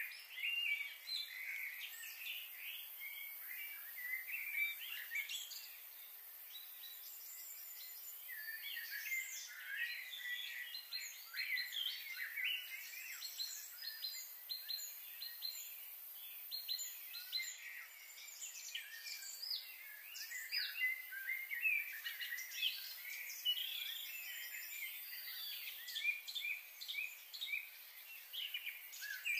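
Many small birds chirping and calling at once, a dense, continuous mix of short high chirps and trills, over a steady faint hiss.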